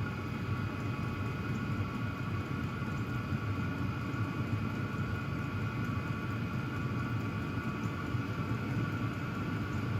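Hcalory diesel air heater running warmed up, about two settings from maximum: a steady whir of its blower and burner with a low rumble and a faint high whine, nice and quiet while moving a great deal of air.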